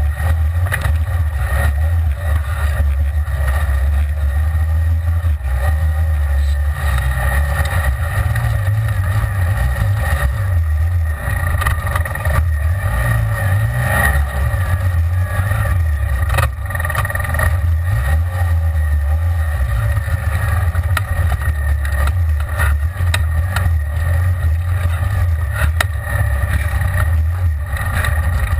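Side-by-side UTV's engine running under way over a rough dirt trail: a steady low drone that rises and falls a little with the throttle, heard from inside the open cab, with a few short knocks and rattles from the bumps.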